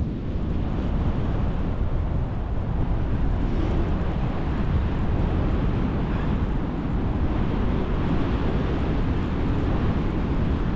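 Wind buffeting the microphone, a steady low rushing noise.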